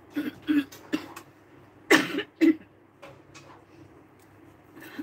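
A woman coughing in short bursts, the two loudest about two seconds in, half a second apart.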